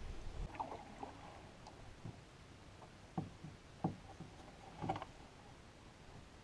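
Faint canoe paddling on calm water: a few soft, separate splashes and knocks as the paddle dips and strokes, about five in all.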